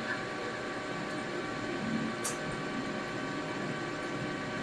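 Metal lathe running under power feed while turning a steel bar with the cross slide locked: a steady machine hum with the rumble of the cut. One brief high tick about two seconds in.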